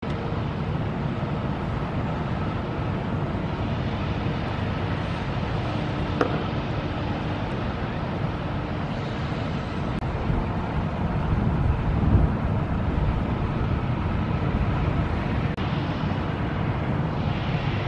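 Wind buffeting the microphone over a steady low rumble, with a brief click about six seconds in and a stronger gust around twelve seconds.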